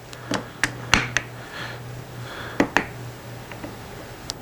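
Steel sockets clicking and knocking against a wooden holder as they are set into and lifted out of its drilled holes: a handful of short, sharp clicks, the loudest about a second in.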